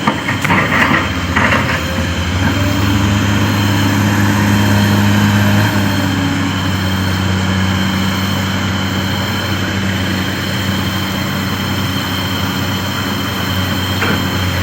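Heavy diesel machinery engine running steadily, a little louder in the first half.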